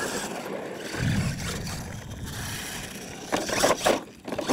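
RC monster truck driving hard across loose dirt, its drivetrain running with tyres scrabbling. There is a louder low rumble about a second in, and sharper knocks near the end as it climbs onto a ramp.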